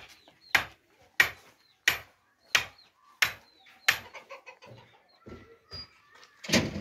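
Footsteps on dirt and gravel at a steady walking pace, about seven steps, then a louder scuff or thump near the end.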